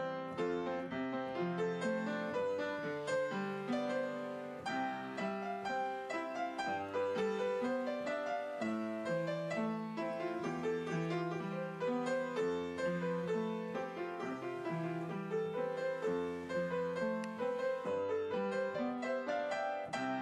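Piano music: a quick, continuous stream of notes over a slower-moving bass line.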